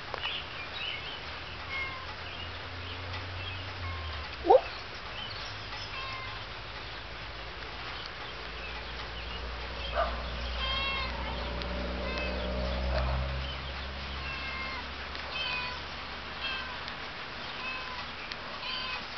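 Domestic cats mewing: short high calls repeating about once a second, with one louder, brief rising call about four and a half seconds in.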